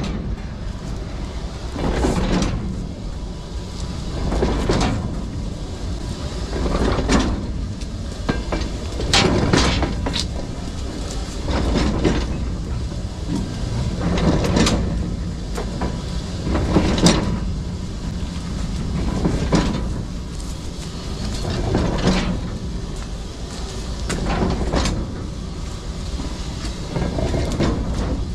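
Freight wagon rolling slowly on rails with a low rumble and a heavy knock from a wheelset about every two and a half seconds. The knock is the wheel flat on the tread striking the rail once per turn of the wheel.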